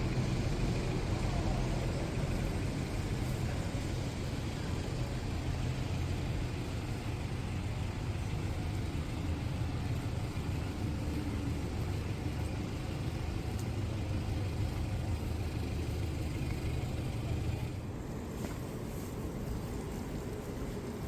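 Steady city street ambience in the rain: a low traffic rumble with a continuous wet hiss, growing somewhat quieter near the end.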